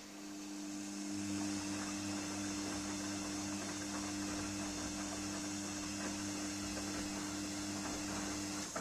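Gorenje front-loading washing machine turning its drum in a wash tumble: a steady motor hum over laundry and water swishing in the drum, with an extra-high water level. The hum comes in as the drum starts turning and cuts off shortly before the end as the drum stops.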